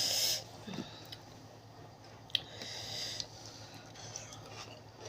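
Quiet eating sounds of someone chewing spicy seafood papaya salad: a short hiss at the start, a single click a little over two seconds in, and faint mouth noises between.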